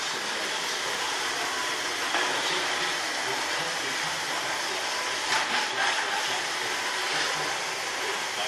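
Robot vacuum cleaner running, a steady whirring hiss from its suction motor and brushes, with a short cluster of knocks a little past halfway.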